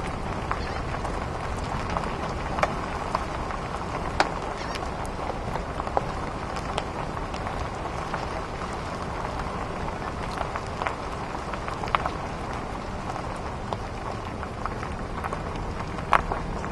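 Vehicle driving over a rough dirt road: a steady rumble of tyres and road noise, with irregular sharp clicks and pops of gravel and debris under the wheels.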